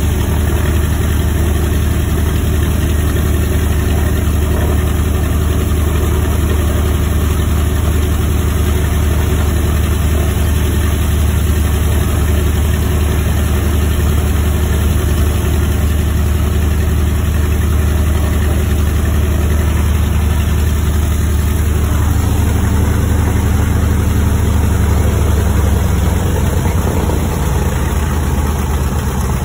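Wright R-2600 Cyclone twin-row radial engine of a B-25 Mitchell running at idle on its first run after a complete overhaul, heard from inside the cockpit. The engine note shifts about three-quarters of the way through and settles slightly lower and quieter near the end.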